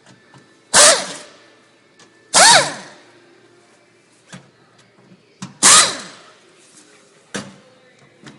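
Cordless drill-driver run in three short bursts, each spinning up and winding down, backing out the screws of a washing machine's back panel. It is set fast enough that the screws fly off.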